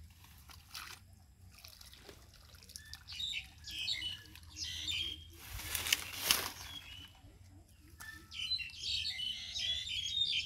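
Small birds chirping in two spells of fast twittering song, with a brief splash of muddy water from a plastic bowl scooping in a shallow ditch about six seconds in.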